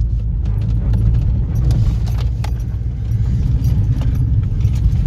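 VW Lupo's engine and road noise heard from inside the cabin while driven fast: a steady low drone, with frequent light rattles and clicks from loose things in the car.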